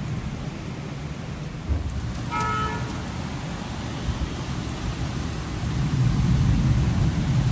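Heavy rain and wind hissing steadily, with a low rumble that swells louder near the end. A vehicle horn toots briefly about two and a half seconds in.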